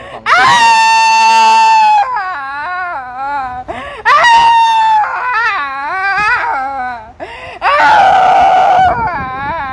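A woman screaming and wailing in long, high-pitched held cries, broken by shorter wavering, sobbing cries; a harsher, rougher scream comes near the end.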